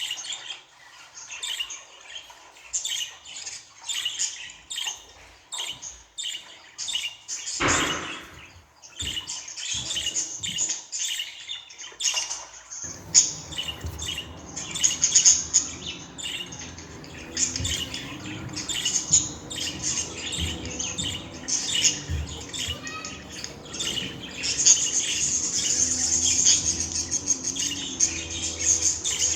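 Budgerigars chirping and warbling in fast, continuous runs of high notes, turning into a sustained chatter near the end. A brief low thump comes about a quarter of the way in, and a low steady hum joins a little before halfway.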